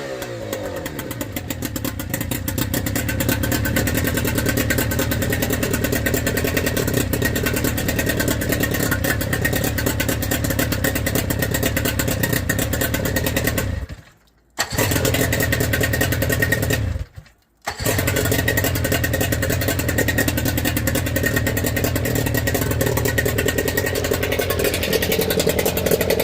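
Engine fitted with a twin-carburettor conversion, idling steadily with an even pulse. The sound cuts out twice for under a second about two-thirds of the way through.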